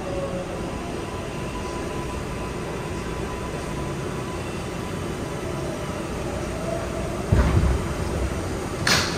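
R142A subway train running, a steady rumble of wheels and running gear. About seven seconds in there is a low thud, and near the end a short hiss.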